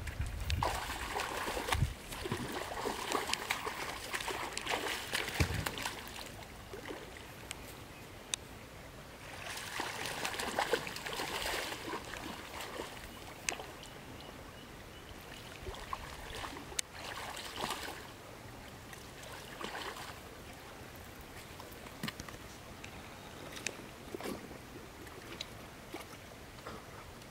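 Water splashing as a hooked catfish thrashes at the surface, in several bursts of a few seconds each. Between and after the bursts it is quieter, with scattered light clicks and knocks.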